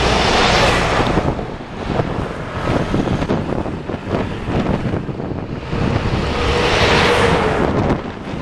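Wind buffeting the microphone of a moving vehicle's camera over a low rumble of traffic, gusting up hard twice: at the start and again about six to seven seconds in.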